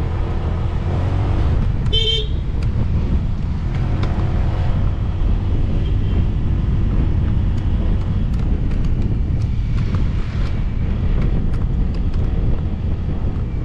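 Motorcycle riding along a road: steady engine and road rumble, with a short vehicle horn toot about two seconds in.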